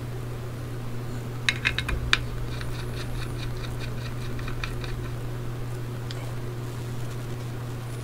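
Small metal clicks of a precision screwdriver working a screw out of an opened hard drive: a quick cluster of sharp clicks, then a run of light ticks at about six a second, over a steady low hum.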